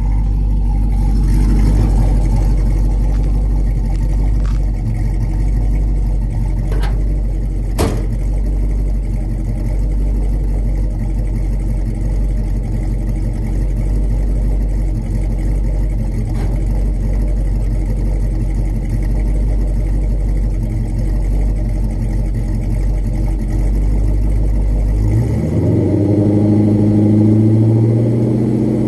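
383ci V8 of a 1986 Chevrolet C-10 idling with a steady low rumble at the dual exhaust, then revved about 25 seconds in, its note rising in pitch. Two sharp clicks sound about seven and eight seconds in.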